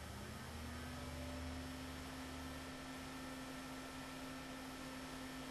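The Asetek VapoChill Micro cooler's included 92 mm fan running at maximum speed: a quiet, steady low hum with a faint higher whine over soft air noise.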